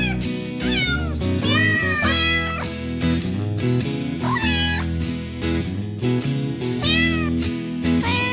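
Cat meowing several times, each meow rising and then falling in pitch, over background music with steady low notes.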